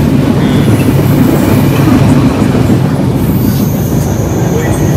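Passenger train running at speed, heard from inside the carriage: a loud, steady rumble of wheels on the rails and the coach rattling. A thin, high steady whine joins about three seconds in.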